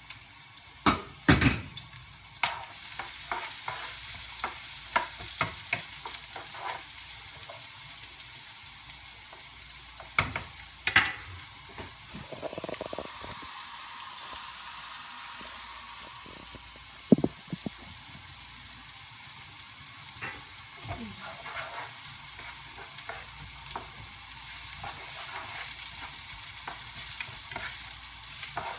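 Chopped garlic and onion sizzling in hot olive oil in a frying pan, steady throughout. A spatula stirs them, with sharp taps and scrapes against the pan, loudest about a second in, around ten seconds in and around seventeen seconds in.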